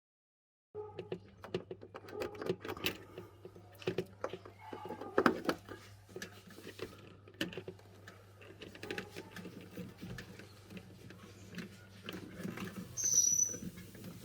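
Hands refitting a refrigerator's defrost heater and its parts: irregular small clicks, knocks and scraping of plastic and metal pieces, over a steady low hum. A brief high squeak near the end.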